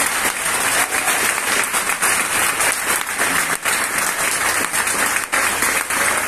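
An audience applauding, dense, steady clapping.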